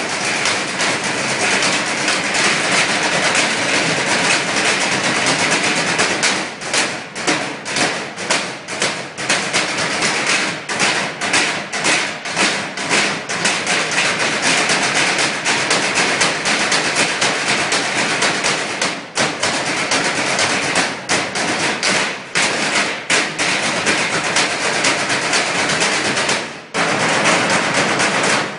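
A percussion ensemble drumming a routine on a row of galvanized metal trash cans: a dense clatter of rapid metallic hits. Stretches of continuous rolling hits alternate with rhythmic patterns broken by short gaps, with a brief break a couple of seconds before the end.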